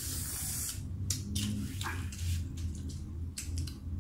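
Eating sounds from people tearing roast pork belly and chicken apart by hand: paper napkins rustling and crinkling, with a run of short crackly clicks and smacks over a steady low hum.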